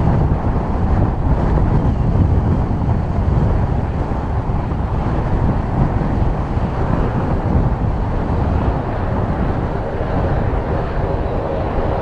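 Strong wind buffeting the microphone over the Fuji T-7 trainer's turboprop engine as the aircraft rolls out after landing; a faint steady engine tone comes through near the end.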